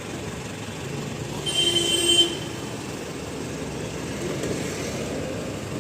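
Street traffic running steadily, with a brief high-pitched tone about a second and a half in that lasts under a second.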